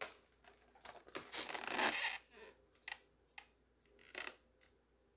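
Latex modelling balloons rubbing and squeaking as a balloon bunny is handled, with a marker pen scratching lines onto the orange carrot balloon. The loudest part is a rustling rub about a second and a half in, followed by a few short ticks.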